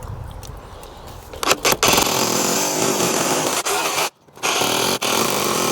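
Power drill running: a few clicks, then a steady drilling run that starts about two seconds in, stops briefly a little after four seconds and starts again.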